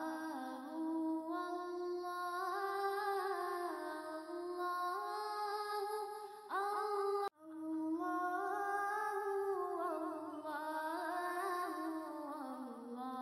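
Background music of wordless humming, a slow gliding melody held in long notes. About halfway through a short rising tone sounds, the music breaks off for a moment, and the humming starts over.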